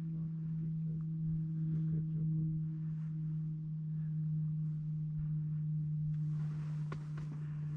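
A steady low hum, one unchanging tone. About six seconds in, a burst of rustling noise lasts for about two seconds.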